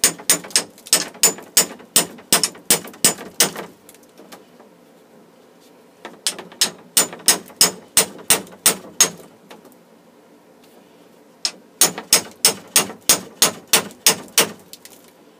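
Hammer tapping a swaging tool into the end of a 3/8-inch copper refrigerant line to flare it out into a socket for a joint. Three quick runs of sharp strikes, about four a second, with short pauses between.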